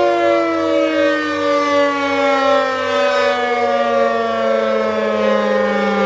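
Civil defense siren winding down: several tones sounding together slide slowly and steadily lower in pitch.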